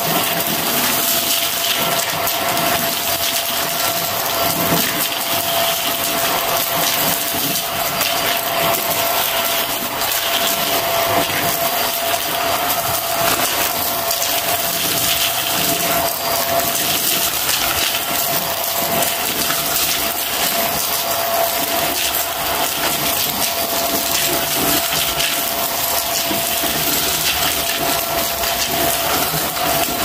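Vacuum cleaner running steadily with a constant whine, its nozzle crackling and rattling as it sucks up confetti and paper bits from a shaggy rug and carpet.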